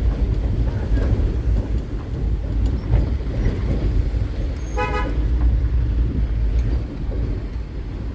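Steady low rumble of a road vehicle, with one short horn toot about five seconds in.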